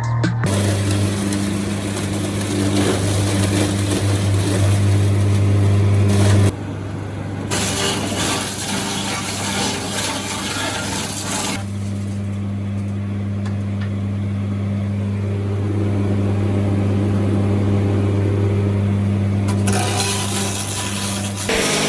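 Sawmill machinery running with a steady low hum and a rushing noise over it; the sound changes abruptly a few times.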